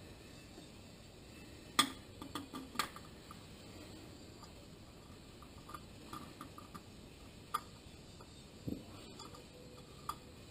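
Scattered light clicks and taps as a spin-on oil filter is turned by hand onto the engine's filter mount, with the sharpest click about two seconds in and a dull thump near the end.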